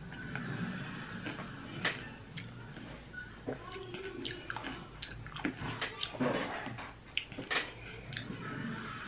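Someone chewing and handling small objects, with scattered light clicks and knocks over faint room noise.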